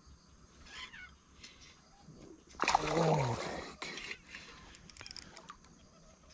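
A hooked bass splashing at the water's surface: one loud splash about two and a half seconds in, lasting about a second.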